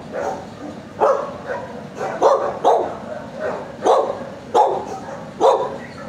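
Dogs barking: about six short, sharp barks spaced irregularly, roughly a second apart.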